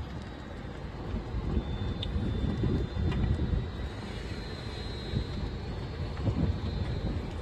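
Thunderstorm wind buffeting the microphone: a low rumble that swells in gusts about a second in and again around six seconds in.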